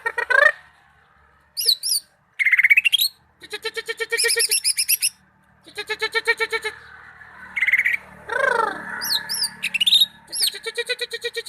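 Cucak ijo (greater green leafbird) singing a string of varied phrases: fast chattering trills and sharp up-and-down whistles, with one falling slurred note just past the middle, broken by short pauses.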